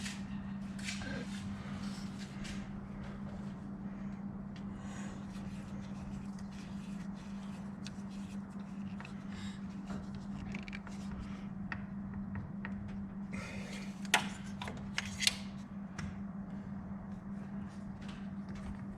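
Small clicks and taps of hand work on garage door spring and cable hardware, with two sharper clicks about a second apart about three quarters of the way in, over a steady low hum.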